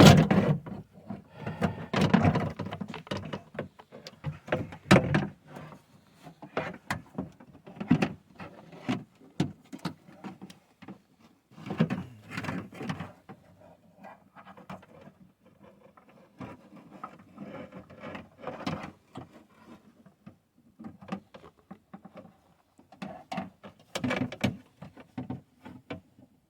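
A new window regulator being worked into place inside a truck's rear door. Irregular clicks, clunks, scrapes and rattles of metal parts knocking against the door shell, with short busier bursts now and then.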